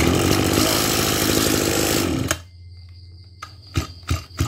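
Kubota DB262 26cc two-stroke brush cutter engine fires on a pull of the recoil starter, runs for about two seconds, then cuts out and winds down. The starter cord is then pulled four or five more times in quick short strokes.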